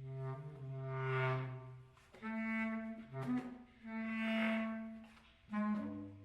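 Solo clarinet playing long held low notes that each swell up and fade away, with a few short notes between them.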